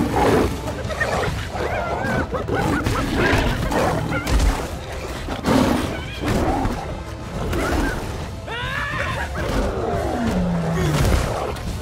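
Film fight soundtrack: an orchestral score under snarling lions and hyenas. The hyenas give a burst of sharp yelping cries near the end, and heavy thuds and crashes mark the blows.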